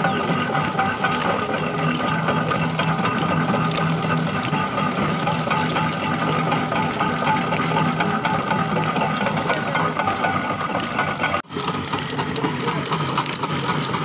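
Sugarcane crushing mill running steadily, its gears and rollers crushing cane stalks fed in by hand, with a steady hum and a light tick about once a second. The sound cuts out briefly about eleven seconds in.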